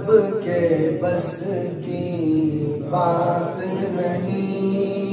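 A man singing an Urdu naat (devotional song in praise of the Prophet) through a microphone, in long, drawn-out melodic phrases.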